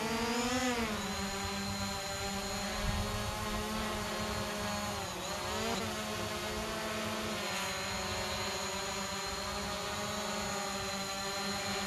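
Hubsan Zino Pro quadcopter's propellers whining steadily as it hovers close by. The pitch swings up briefly about half a second in and dips again around five seconds in as the motors change speed.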